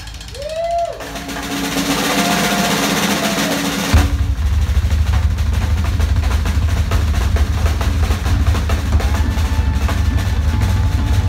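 Live rock band: a drum roll with a loud cymbal wash builds for about three seconds, then about four seconds in the bass and drum kit come in hard with a heavy low end and rapid drumming, with a few held electric guitar notes above.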